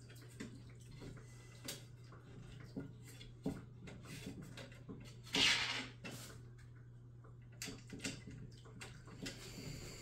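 Scattered light clicks and knocks of metal bakers-rack frame parts and hardware being handled during assembly, with a brief louder scrape about five and a half seconds in. A steady low hum runs underneath.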